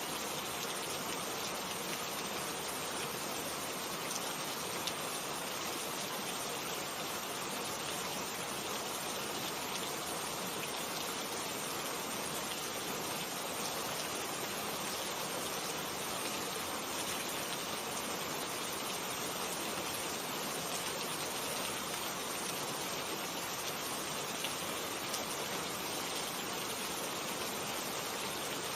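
Steady rainfall: a constant even hiss of rain with faint scattered drop ticks.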